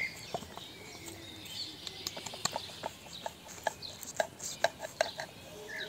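A steel knife cutting through a baked pide's crisp crust, giving many small irregular crackles and crunches. Birds chirp faintly in the background.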